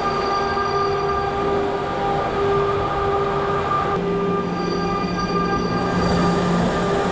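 CNC milling machine running, a steady mechanical whine made of several held tones that shift to new pitches every second or so.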